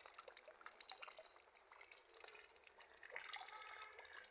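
Faint rain dripping and drops splashing into a full rainwater-harvesting tank: a scatter of light ticks over a soft hiss.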